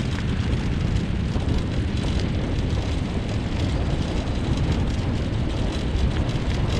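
Steady rumble and gravel crunching of a rig rolling along a gravel track, pulled by a four-dog Siberian husky team.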